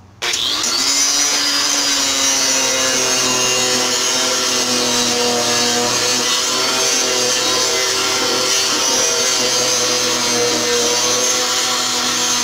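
Electric orbital sander switched on about a quarter second in, then running steadily with its pad pressed against the end of a pine board.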